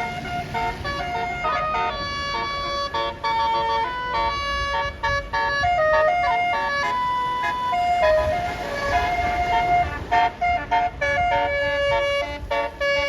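Bus telolet Basuri musical horn playing a melody: a run of held notes stepping up and down in pitch, over the low rumble of the bus engine.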